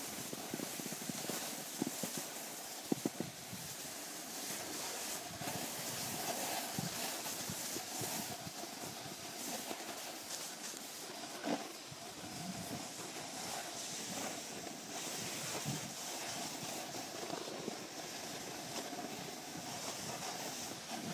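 Snowboard sliding over packed snow: a steady scraping hiss, with a few short knocks about two to three seconds in and again around twelve seconds.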